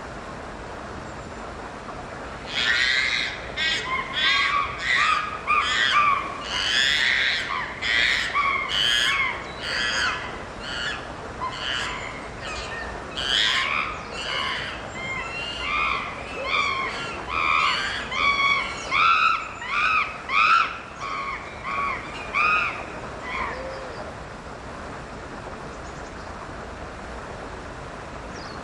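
Agitated chimpanzee screaming: a long run of loud, high-pitched calls, each rising and falling in pitch, about two a second, starting a couple of seconds in and breaking off well before the end, over a steady background hiss.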